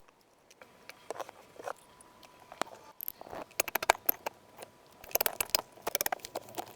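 Slime being squished and worked, giving irregular crackling and popping clicks. They come in two dense clusters, one about halfway through and one shortly before the end.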